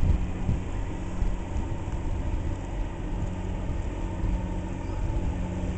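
Engines of the Great Lakes freighter Manistee running as the ship passes close by, a steady low hum.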